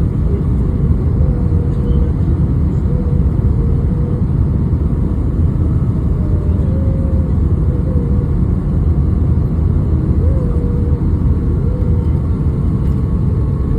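Steady low rumble of engines and airflow inside the cabin of an Airbus A319 airliner during its landing, with a faint wavering whine above it.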